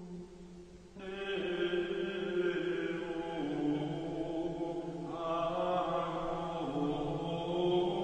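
Background music of slow sung chant: long held notes that move to a new pitch every second or two. The music dips briefly at the slide change, and a new phrase comes in about a second in.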